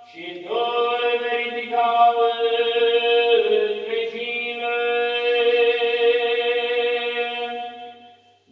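A single male voice, an Orthodox priest, chanting the Gospel reading on long held notes. The pitch dips briefly about three and a half seconds in, and the voice fades out near the end.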